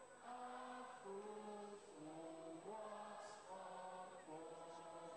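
An anthem sung slowly in long held notes, led by one voice over a microphone with the gathering singing along.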